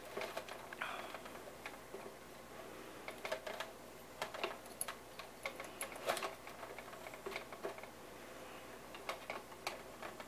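Faint, irregular small clicks and ticks of an Allen driver turning out the little screws that hold the tail case cover on a 470-size RC helicopter.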